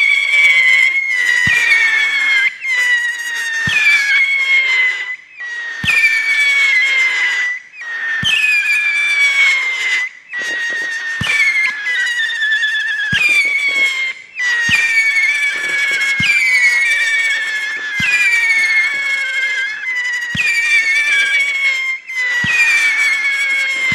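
A whistle-shot fireworks cake firing shot after shot: a sharp launch thump every second or two, each followed by a shrill whistle that falls slowly in pitch, the whistles overlapping so the screaming runs on almost without a break.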